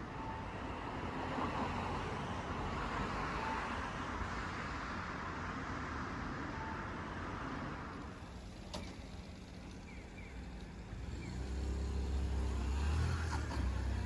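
Road traffic: a car passes during the first half. A vehicle's low engine rumble then builds over the last few seconds.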